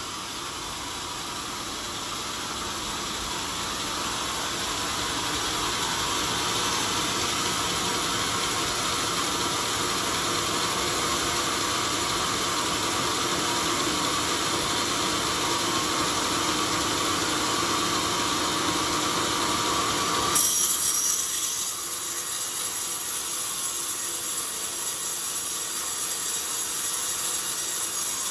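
Sawmill blade cutting lengthwise through an old coconut-palm log, a steady sawing noise that grows louder over the first few seconds as the cut builds. About two-thirds of the way through, a brief loud burst is followed by an abrupt change to a thinner, hissier sawing sound.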